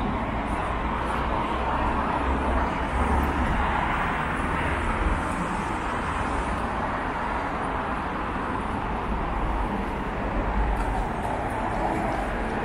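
City street traffic: cars passing through an intersection, a steady wash of engine and tyre noise, with a low rumble that swells twice.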